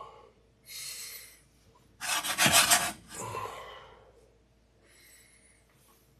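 Cumin seeds and peppercorns scraping and rattling across a hot dry pan as they are moved about while toasting, in a few short rasping spells, the loudest about two seconds in and lasting nearly a second.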